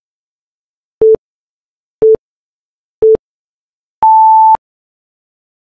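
Countdown timer beeps: three short low beeps a second apart, then one longer, higher beep marking the end of the countdown.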